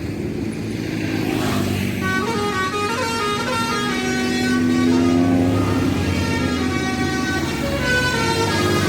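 Indonesian bus telolet horn (Basuri type) playing a tune of short notes that step up and down in pitch, starting about two seconds in, over the bus's running engine. A brief rush of noise comes just before the tune.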